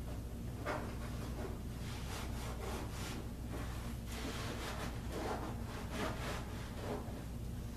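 Self-adhesive carpet squares being handled and rubbed down by hand: a run of irregular scratchy rubbing and rustling sweeps over a steady low hum.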